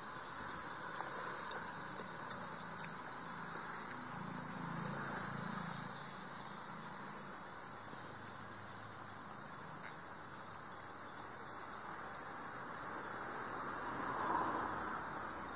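Outdoor ambience: a steady, high insect drone, with a bird repeating a short, high, falling chirp every couple of seconds.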